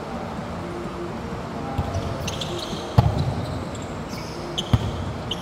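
A volleyball being played on an indoor court: two sharp thumps of the ball, the louder about three seconds in and another under two seconds later, with short sneaker squeaks from players moving on the court floor, in a large arena hall.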